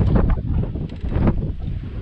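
Heavy wind buffeting the microphone, an uneven low rumble with gusty surges near the start and about a second in.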